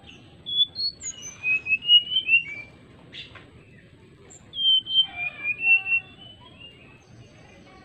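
Fulvous-chested jungle flycatcher (sikatan rimba dada coklat) singing two phrases of clear, flute-like whistled notes. Each phrase opens on a high note and runs into a quick, wavering string of lower whistles, with a pause of about two seconds between them.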